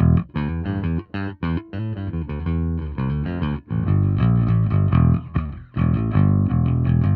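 Electric bass played with a pick on the bridge P-style split-coil pickup alone, through an Ampeg SVT amp-simulation plug-in: a quick run of notes with sharp pick attacks, some clipped short with brief gaps between them.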